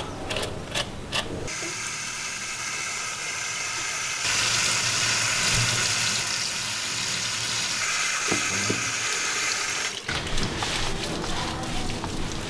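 Water running from a shower hose into a bathing tub: a steady hiss that grows louder about four seconds in and stops near the end, leaving small splashes and patter.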